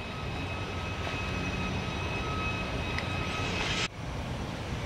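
Steady outdoor background rumble with a faint high hum. It breaks off abruptly about four seconds in and gives way to a similar steady ambience.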